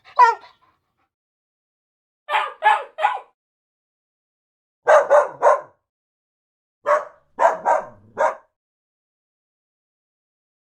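Dog barking: a single bark, then runs of three, three and four quick barks with pauses of about two seconds between.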